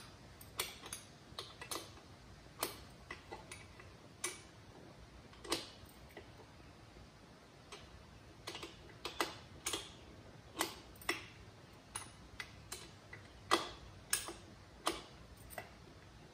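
Sharp metallic clicks at an irregular pace, sometimes several in quick succession, as a 10 mm wrench is worked around a dirt bike's chain adjuster bolt, turning it to take slack out of the chain.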